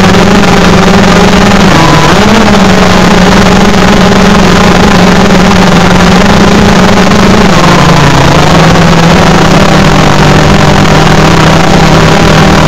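DJI Phantom 3 Pro quadcopter's motors and propellers humming very loudly, recorded up close by a recorder strapped to the drone with tape over its mic. The pitch dips briefly about two seconds in and drops to a lower hum about halfway through.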